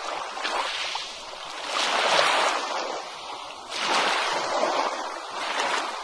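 Ocean waves breaking on a beach, a hiss of surf that swells and ebbs, with surges about two seconds in and again about four seconds in.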